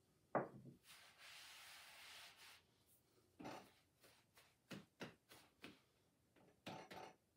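Faint sounds of a ball of sugar cookie dough being kneaded by hand on a floured cutting board. There is a sharp knock about half a second in, the loudest sound, then a rubbing hiss for about a second and a half, then several soft thuds as the dough is pressed down.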